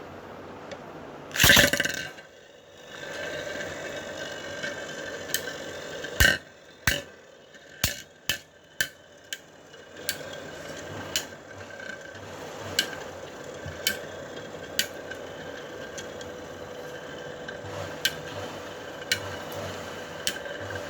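Metal Beyblade spinning tops launched with a loud burst about a second and a half in, then whirring steadily in a plastic stadium, with repeated sharp clacks as they collide.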